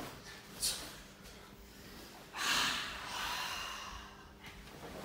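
Forceful, hissing breath exhaled by karate students performing the kata Koshiki Chinto, starting suddenly a little over two seconds in and fading over about a second and a half. A single sharp snap comes just under a second in.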